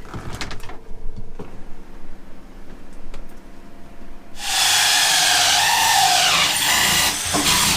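Power drill cutting a hole through the boat's hull, loud and high-pitched for about three seconds in the second half, its pitch sagging and recovering as the bit bites, after a few seconds of light knocks and handling noises.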